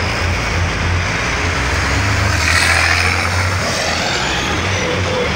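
Diesel engines of two racing truck tractors revving hard at a drag-strip start line, a loud, steady, heavy drone. The thick black smoke from their stacks shows they are running rich under heavy throttle.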